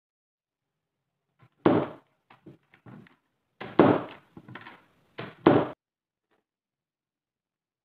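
Wooden chest being shut and handled on a wooden workbench: a few dull thuds and clatters, the loudest about two, four and five and a half seconds in, with lighter knocks between.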